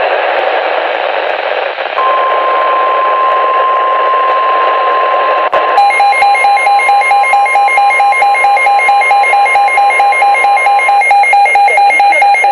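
NOAA Weather Radio alert on a receiver: a hiss of static, then about two seconds in the steady 1050 Hz warning alarm tone starts and holds until about eleven seconds in. About six seconds in, a second electronic beep joins it, pulsing rapidly on and off, and it is still going at the end.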